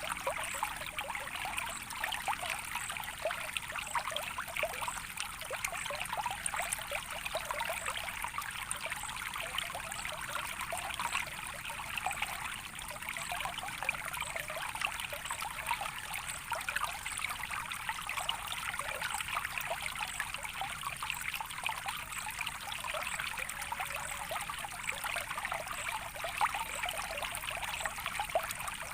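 Gently flowing water trickling steadily, with a dense patter of small splashes and no deep rush.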